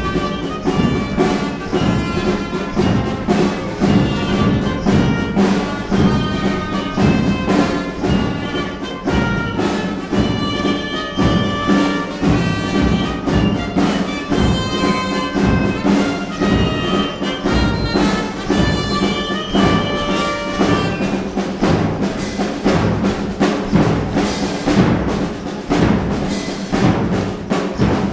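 Lively band music with brass and timpani over a steady beat. In the last third the brass drops away and drums carry on alone.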